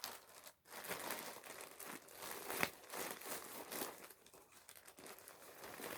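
Plastic packaging crinkling and rustling as it is handled, in faint, irregular bursts.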